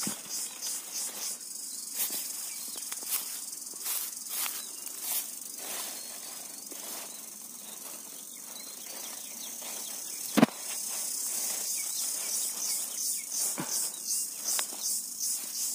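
Insects chirping in a pulsing high-pitched chorus, with light rustling of bitter gourd vines and straw mulch being handled, and one sharp click about ten seconds in.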